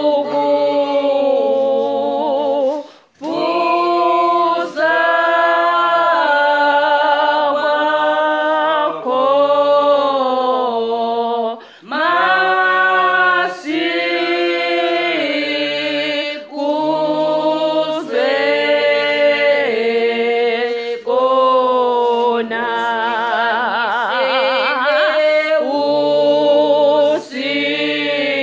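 Congregation singing a hymn unaccompanied in several voices, in long held phrases with short breaks between them.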